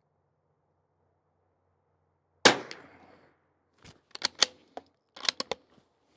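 A single shot from a Bergara B14R .22 rimfire bolt-action rifle, followed about a second and a half later by a quick run of metallic clicks as the bolt is worked to eject the spent case and chamber the next round.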